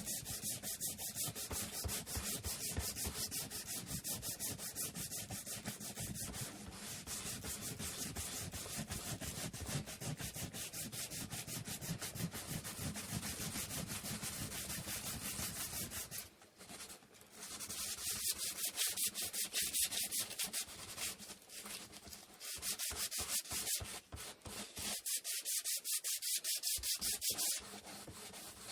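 Sandpaper rubbed back and forth by hand on wood in quick, even strokes. The strokes stop briefly about sixteen seconds in, then resume more unevenly, with another short pause near the end.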